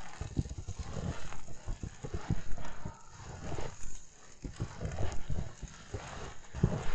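Footsteps crunching through fresh snow at a steady walking pace, about one step a second.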